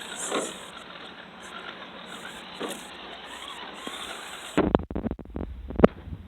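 Small electric motor and gearing of an RC crawler truck whirring faintly in short spurts as it crawls. About two-thirds of the way in, a low rumble of wind or handling on the microphone sets in, with several sharp knocks, the loudest a little before the end.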